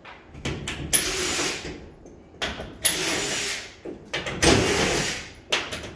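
Construction work on a temporary metal-stud wall: clusters of sharp clicks and knocks, each followed by about a second of harsh noise, three times.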